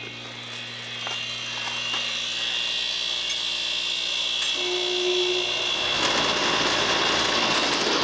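Iced-over Copeland reciprocating compressor in a wall-mounted heat pump, humming steadily with a faint high whine. About six seconds in, the hum gives way to a louder, even rushing noise.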